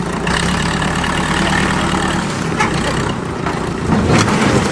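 Large crawler bulldozer's diesel engine running steadily at a low idle, with a few short knocks toward the end.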